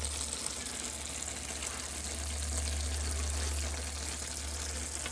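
Pan of chicken, potato and tomato stew simmering: a steady bubbling hiss, with a low steady hum underneath.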